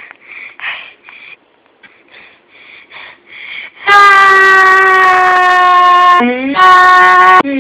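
A girl's long, very loud scream close into the microphone, starting about four seconds in and held on one steady pitch for about two seconds. It then drops, climbs back and holds again before cutting off sharply near the end, loud enough to overload the recording. Before it comes a run of short, quiet breathy sounds.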